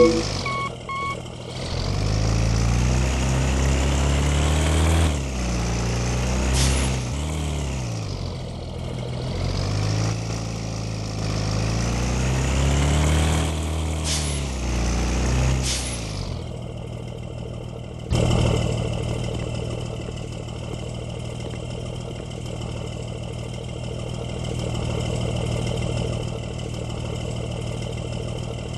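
Bus diesel engine: the last notes of a multi-tone horn right at the start, then the engine pitch rising and falling repeatedly for about fifteen seconds with two short air-brake hisses, before it settles into a steady idle.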